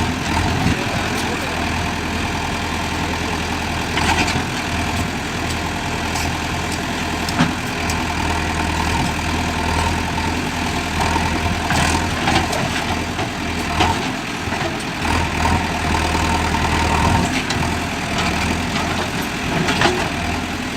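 JCB 3DX backhoe loader's diesel engine running steadily, with occasional short sharp knocks.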